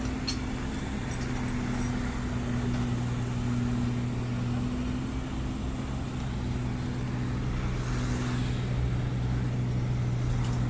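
A vehicle or machine engine running steadily, with a low, even hum.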